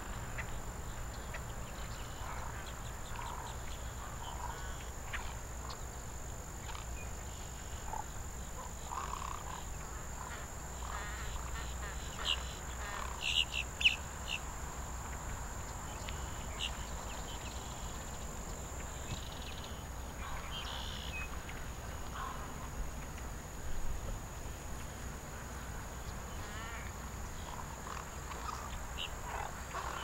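Outdoor wetland ambience: scattered short bird calls from a mixed flock of wading birds and ducks, loudest as a quick cluster of high chirps about halfway through, over a steady low rumble and a faint thin high whine.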